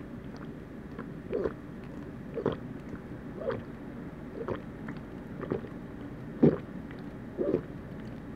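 A person gulping a fizzy milk soda from a plastic cup, a swallow about once a second, seven in all, the loudest about six and a half seconds in.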